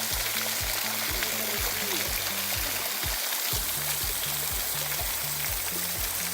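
Background music with a steady beat and a stepping bass line, over the steady rushing of a waterfall. The music's low end drops out briefly about halfway through.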